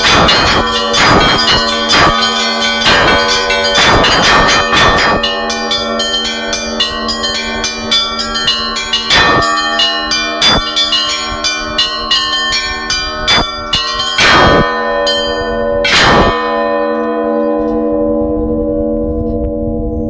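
Orthodox church bells rung by a single ringer: small bells struck in quick rhythmic patterns over medium bells, with the large bell sounded from a foot pedal. The strikes stop about three quarters of the way through and the bells ring on, fading.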